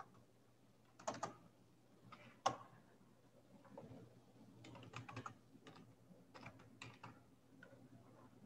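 Faint keystrokes on a computer keyboard as a word is typed: separate clicks coming irregularly in small clusters, the sharpest about two and a half seconds in.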